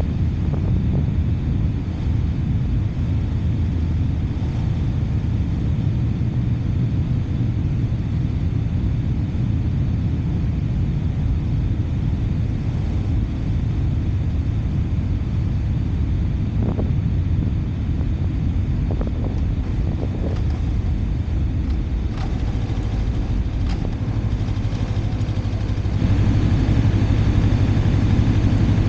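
Motorcycle underway, a steady low rumble of engine and road noise. It grows louder, with a steadier low hum, about 26 seconds in.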